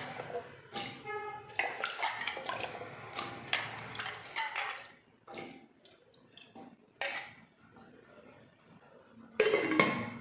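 Taro root pieces dropping into water in a metal pressure cooker: a run of splashes and knocks against the pot, with a brief metallic ring about a second in. Scattered clinks follow, then a louder metal clatter near the end.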